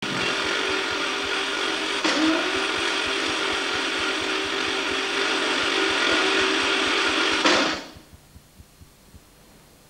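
Steady mechanical whirring of a motor-driven mechanism, with a humming tone that dips in pitch about two seconds in and climbs back. It stops about two seconds before the end.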